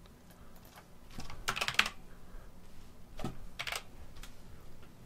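Typing on a computer keyboard: two short runs of keystrokes, one about a second in and another a little after three seconds.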